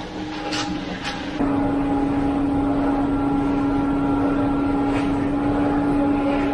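Concrete pump truck's engine running with a steady, unchanging drone. It gets louder about a second and a half in. Two short scraping clicks come just before that.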